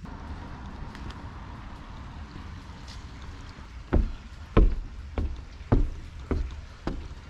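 Footsteps climbing painted wooden porch stairs: a regular run of thuds about every half second, starting about four seconds in. A low steady background noise comes before them.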